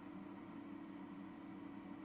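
Faint, steady hum of an air fryer oven running while it bakes, its convection fan and heater on.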